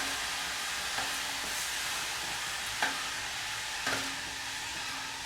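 A hot high-carbon steel hammer head quenching in water to harden it: a steady boiling sizzle and hiss that slowly fades, with a few light knocks.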